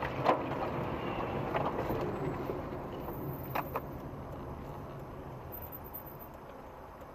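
Engine and road noise of a car heard from inside the cabin, gradually getting quieter as the car slows down, with a few sharp clicks shortly after the start and again about three and a half seconds in.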